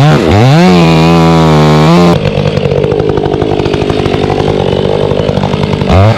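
Chainsaw engine revved in quick throttle blips, then dropping about two seconds in to a rough, chugging low-speed run, and revving up again near the end.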